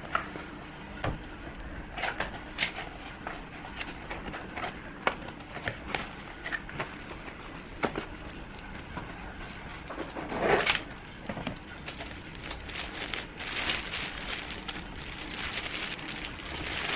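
Unboxing noises at double speed: a cardboard box being handled and its flaps opened, with scattered clicks and knocks, then plastic wrap crinkling near the end as it is pulled off the plasma ball.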